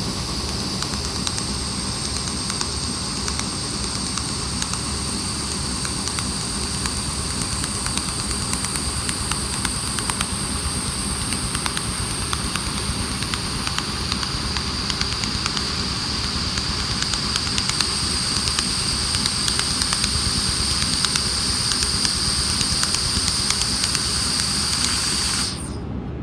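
Handheld laser welder running while welding brass: a steady hiss with fine crackling and several high steady whines, cutting off abruptly near the end.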